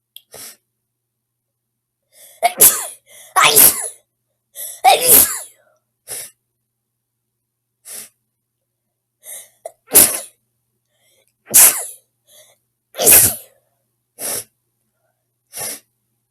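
A girl sneezing over and over: about a dozen separate sneezes and sharp in-breaths, each followed by dead silence. The loudest sneezes come a few seconds in and again in the second half.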